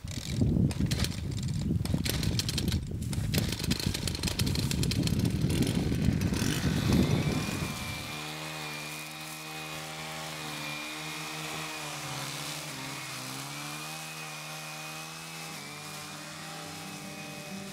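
A motor-driven machine running loudly for about eight seconds, then cutting away to background music with long held notes.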